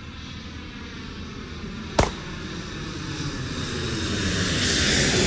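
A single pistol shot about two seconds in, over a steady engine drone with a slowly shifting pitch that grows louder toward the end.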